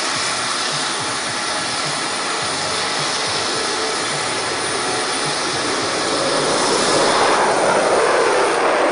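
Jet engines of a Lockheed C-5M Super Galaxy running with a steady, dense roar, growing louder about seven seconds in.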